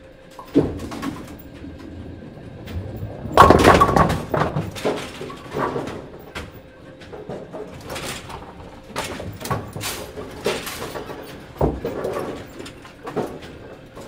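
Automatic bowling pinsetter resetting pins: a run of clattering wooden knocks and mechanical clunks, loudest in a dense burst of clatter about three and a half seconds in, over a faint steady machine hum.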